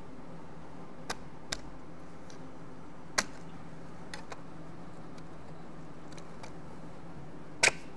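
Scattered sharp plastic clicks and knocks as a dust boot is forced onto a spindle in a tight fit, the loudest near the end, over a steady low hum.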